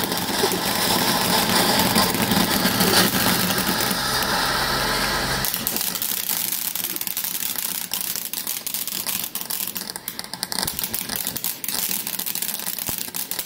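Ground fountain firework spraying sparks with a loud, steady hiss and dense crackling. About halfway through the hiss thins and the crackle goes on as scattered sharp pops.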